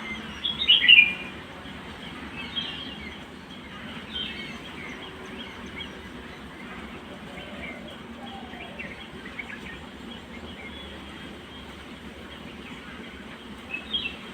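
Birds chirping: short, high chirps scattered through, the loudest a quick cluster about a second in, over a steady faint background hiss.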